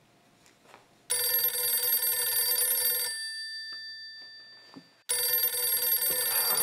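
Telephone bell ringing twice. One ring of about two seconds dies away, and a second ring starts about five seconds in.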